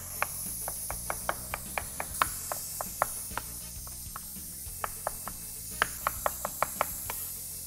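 Chef's knife mincing soft roasted eggplant on a wooden cutting board: quick repeated knocks of the blade on the wood, about three or four a second, thinning out for a couple of seconds in the middle before picking up again. The eggplant is being chopped fine by hand rather than blended.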